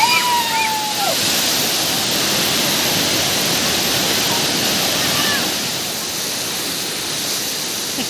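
Waterfall pouring onto rock and into a shallow pool: a steady, loud rush of water. A person's voice calls out in one held cry during the first second.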